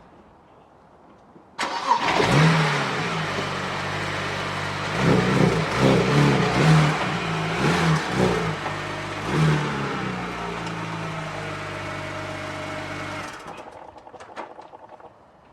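BMW 335i's turbocharged 3.0-litre inline-six starting about a second and a half in, given several short revs, then settling to a steady idle before dropping away sharply near the end.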